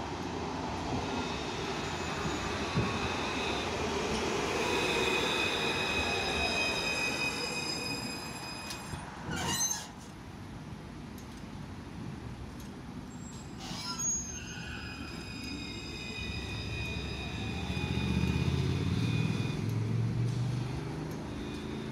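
Melbourne low-floor tram running on street track: steady high-pitched wheel squeal over the rumble of the wheels on the rails, with a faint falling whine as it slows. The sound breaks off sharply near the middle, then the squeal and a heavier low rumble return as a second tram draws in.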